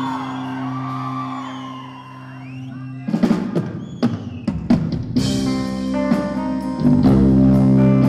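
Live rock band with a female singer: a held chord under sliding sung notes, then about three seconds in the drums come in with a few sharp hits before the full band breaks into loud playing with bass and guitar.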